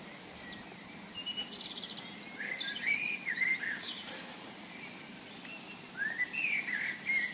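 Wild birds singing: short, chirping, warbling phrases about two and a half seconds in and again near the end, over a faint steady outdoor hiss.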